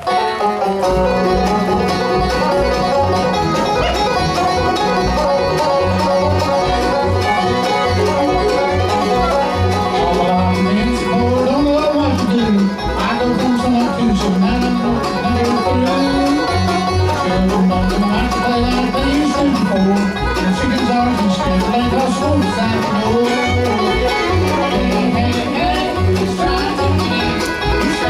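Live bluegrass band playing a song on banjo, fiddle, mandolin, acoustic guitar and upright bass, with the bass keeping a steady, even beat.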